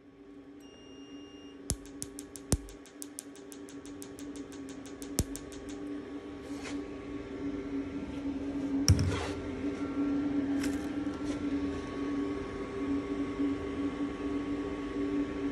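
Picosecond tattoo-removal laser firing into the skin: a run of sharp snaps, about six a second for some four seconds, over the machine's steady cooling hum. A short beep comes just before the firing and a single thump near the middle.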